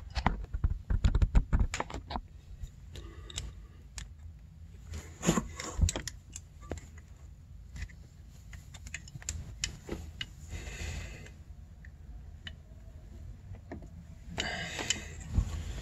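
Scattered light metal clicks and clinks of a hand tool working the threaded adjuster and locknut on a snowmobile's exhaust power valve cable, thickest in the first couple of seconds and again about five seconds in.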